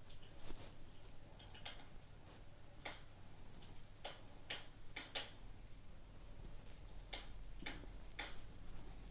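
Wood fire crackling: sharp pops at an uneven pace, roughly one a second, over a low steady hum.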